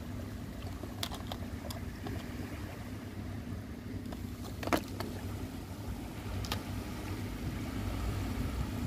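Steady low wind rumble on the microphone, with a few light clicks and taps of a plastic lure box and metal hooks being handled; the sharpest click comes about halfway through.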